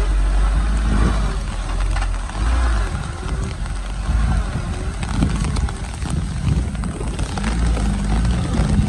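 Loaded sugarcane truck's engine running as it passes close by and pulls away down a muddy track. A deep rumble is heaviest for the first two and a half seconds, then eases.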